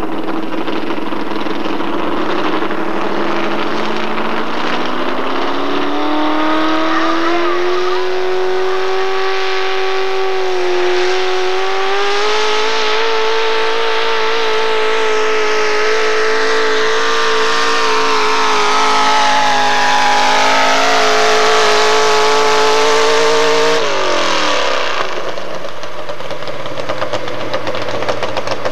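Modified four-wheel-drive pulling truck's engine at full throttle, dragging a weight-transfer sled. The revs climb over the first several seconds and then hold high and steady. About 24 seconds in the engine note falls away sharply as the pull ends, leaving a low, rough running sound.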